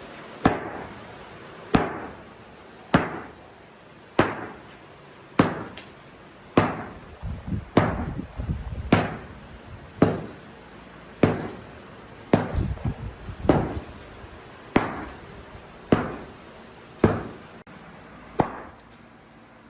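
A tool striking wood in hard, evenly spaced blows, about one every second and a quarter, with a short ring after each. Lighter, quicker knocks fall between the blows at two points in the middle.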